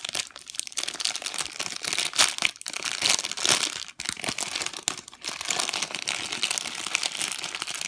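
Packaging crinkling and rustling irregularly as it is handled, with sharp crackles throughout.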